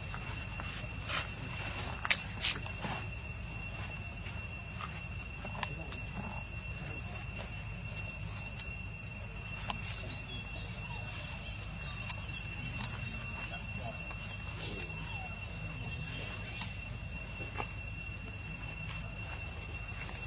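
Steady high-pitched insect drone from the surrounding woodland, with two sharp clicks close together about two seconds in and a few faint ticks after.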